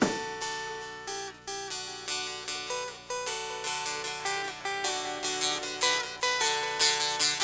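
Background music of plucked acoustic guitar, picked notes in a steady rhythm.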